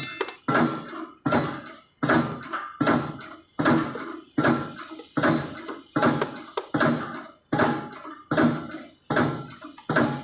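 A steady, even beat of heavy thuds, a little more than one a second, each sharp at the start and dying away quickly.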